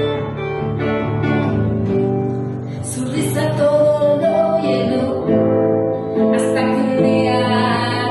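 Live acoustic band playing a song: women's voices singing over acoustic guitar and double bass.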